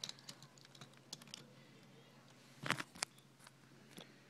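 Faint handling noise: scattered light clicks and taps, with a louder cluster of knocks a little after two and a half seconds in, as the camera is moved about.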